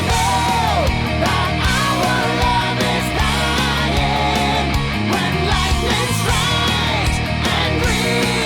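Heavy metal / power metal band recording: distorted electric guitars, bass and drums playing steadily, with a melodic lead line over them that bends and wavers in pitch.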